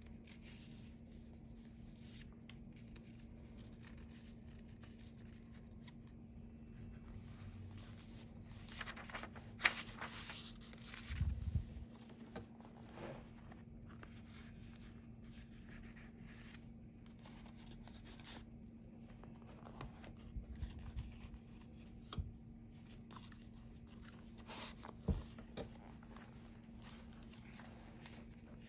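Paper rustling and page turns as a handmade junk journal's pages and tucked-in paper tags are handled, with a busier run of rustling about ten seconds in and a sharp tap near the end. A faint steady hum lies underneath.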